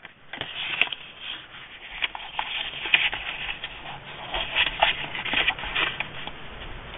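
Folded sheet of designer paper sliding and rustling against a plastic envelope punch board as it is turned and lined up, with scattered light taps and scrapes.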